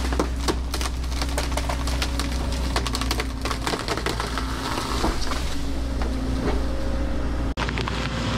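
Wood cracking and splintering in a quick run of sharp snaps as an excavator bucket pushes over a small tree and breaks its branches, over the steady low hum of the excavator's diesel engine.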